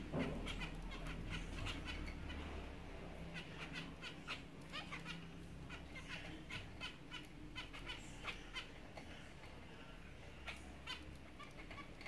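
A cage of zebra finches calling: many short chirps from several birds, coming several a second and overlapping.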